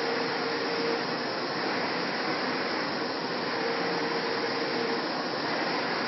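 Flatbed LED UV printer running, a steady mechanical whir of the machine as its print carriage passes back and forth, with a faint hum that comes and goes.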